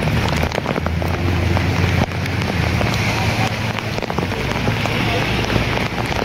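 Heavy downpour: a steady rain hiss with many sharp drop hits close by, over a low steady rumble.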